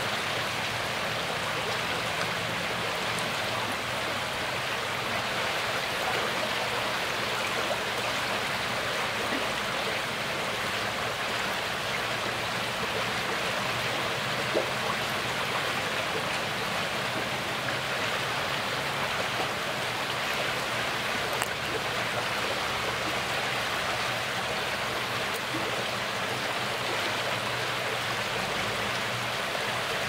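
Shallow water lapping and trickling over a pebble bed: a steady wash of water noise with a few small ticks of moving stones or droplets.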